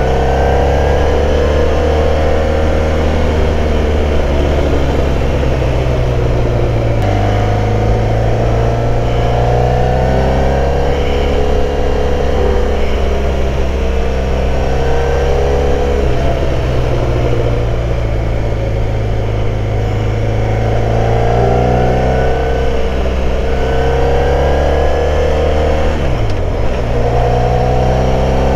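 Motorcycle engine under way, its note climbing and falling again and again through a series of bends, with a sudden drop in pitch three times as gears change.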